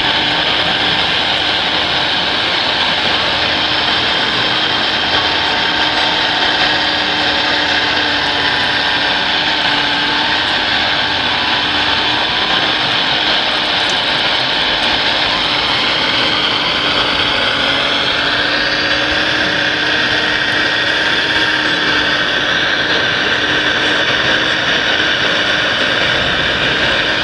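Electric motors, gearboxes and hydraulic pumps of radio-controlled model construction trucks and a model digger, running together as a steady layered whine. Some tones rise and fall in pitch in the middle as a machine speeds up or works its hydraulics.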